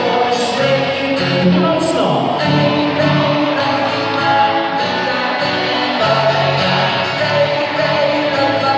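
Live band playing through a PA: guitars strumming under sung vocals, one continuous song.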